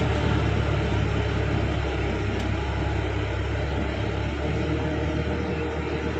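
Sonalika DI-50 RX tractor's diesel engine running steadily as the tractor drives away through a flooded, muddy field, growing slightly fainter about four seconds in.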